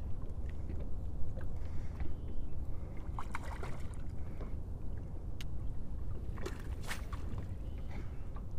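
Water splashing at the side of a boat, in two bouts, as a hooked largemouth bass is brought in, with small knocks and clicks on the boat over a steady low rumble.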